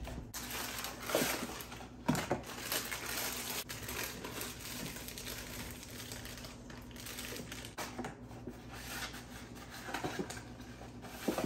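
Crinkling and rustling of a brownie mix box and its inner bag being handled, torn open and emptied into a stainless steel mixing bowl, with a few sharper clicks.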